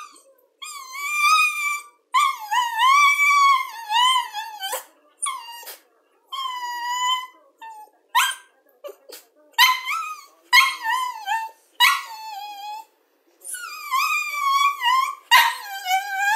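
Cavalier King Charles Spaniel whining over and over in high, pitch-bending whines, some drawn out for a second or two, broken by a few short sharp yips: excited begging for a piece of jerky held in front of it.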